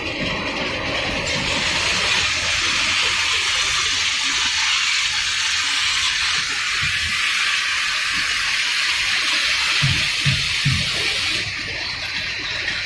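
Steady rushing hiss of a fried twist pasta frying line running, with the pasta carried on its mesh conveyor. A few low knocks come near the end, and the hiss drops away shortly after.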